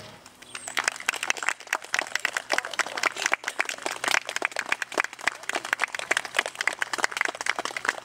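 Applause: many people clapping their hands, a dense irregular patter of claps that starts about half a second in.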